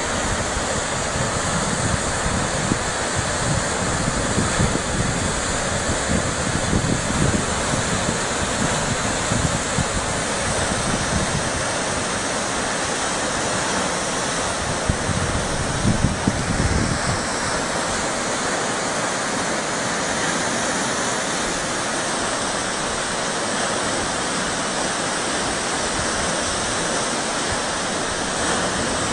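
Floodwater rushing in a steady, loud, even wash of noise. Low buffeting, like wind on the microphone, comes and goes during the first half or so.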